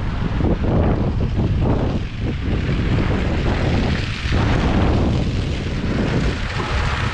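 Wind buffeting the microphone outdoors: a heavy, uneven low rumble that swells and dips in gusts.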